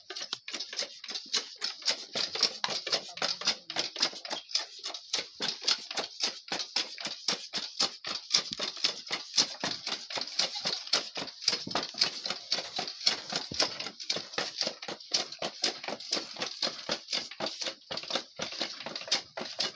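Goat hooves clattering on a hard floor as the herd is let through, in a quick, fairly even run of sharp knocks of about four or five a second.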